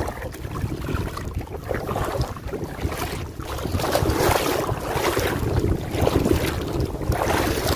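Wind buffeting the microphone over shallow sea water, with uneven swells of splashing about once a second as someone wades through the incoming tide.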